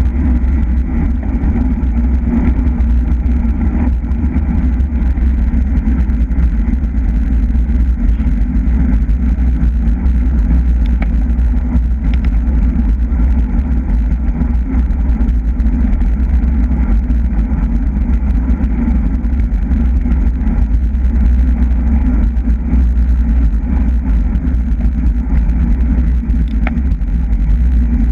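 Steady wind noise rushing over the microphone of a camera riding on a racing bicycle at speed: a constant deep rumble.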